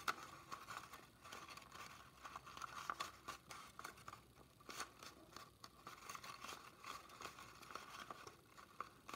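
Faint rustling and crinkling of plain copy paper, with a few soft ticks, as hands hold a glued paper roll together while the glue sets.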